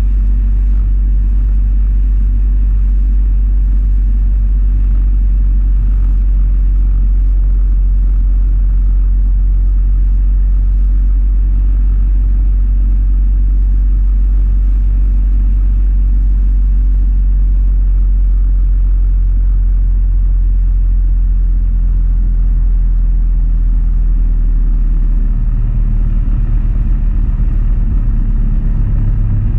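Motorcycle engine running steadily at road speed under a heavy low wind rumble on the microphone. The low rumble changes about 25 seconds in.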